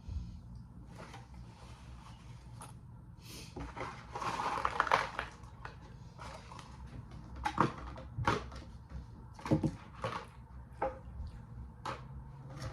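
Takeout food packaging and containers being handled while leftovers are put away: a stretch of paper rustling and crinkling about four seconds in, then a series of sharp clicks and knocks.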